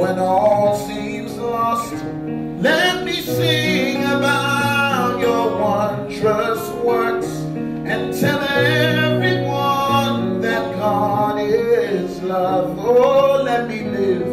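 A man singing long, bending vocal phrases without clear words over sustained keyboard chords from a Yamaha MOXF8 synthesizer.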